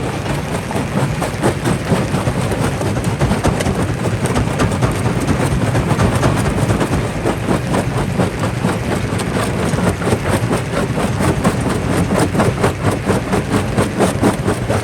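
Jaw rock crusher running under load: a heavy steady machine drone over a dense clatter of rock being crushed, becoming more rhythmically pulsed in the last few seconds.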